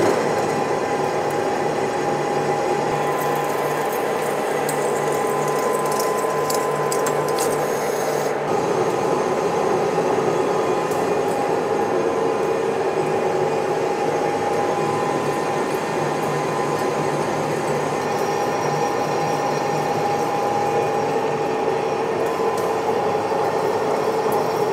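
Metal lathe taking a continuous turning cut on a steel crane axle shaft: steady gear whine from the machine under the scraping hiss of the tool in the steel, with a spell of crackling chips between about three and eight seconds in. The cut is running dry, and the heat in it is building up.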